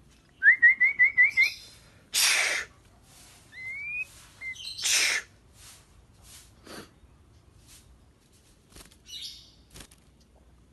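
White-rumped shama singing: a quick run of about seven rising whistled notes, then loud harsh rasping calls broken by a short upward whistle, trailing off into scattered brief notes and clicks.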